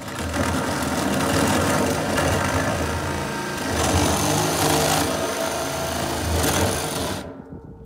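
Power drill boring a hole into a wooden board, running steadily for about seven seconds and then stopping abruptly.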